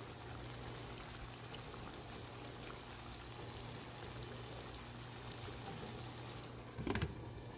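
Chicken gravy sizzling and simmering in a pan on the stove: a steady hiss with a low hum underneath, and a short knock near the end.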